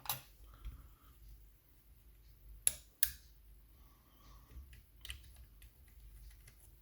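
Small sharp clicks and taps of lever-lock parts being handled as the levers and spacers are lifted out of a dismantled mortice lock, two louder clicks a little under three seconds in.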